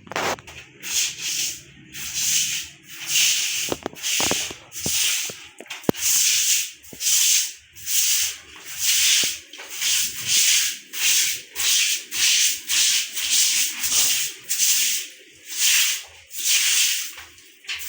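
A broom scrubbing a wet floor in steady back-and-forth strokes, a loud swish about once a second, with a few knocks a few seconds in.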